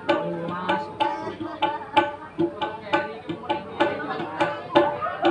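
Kendang hand drum played in a quick, steady rhythm through a sound system during a sound check, mixing sharp slaps with pitched, ringing bass strokes.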